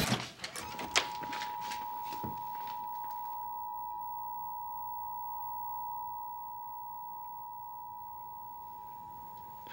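Television test-pattern tone: a steady electronic beep held without a break over the test card, the signal that the station has gone off the air. It starts about half a second in and fades slightly toward the end, with a few faint clicks early on.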